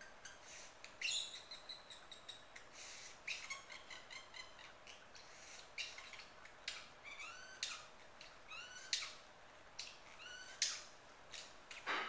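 Pet parrot mimicking sneezes and a snore-like whistle copied from its owner: a string of sharp noisy bursts, about one a second, several carrying short whistled notes that rise and fall in pitch.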